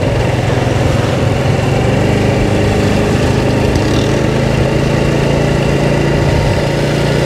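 Motorbike engine running steadily while riding, with a constant low engine note under an even rush of noise.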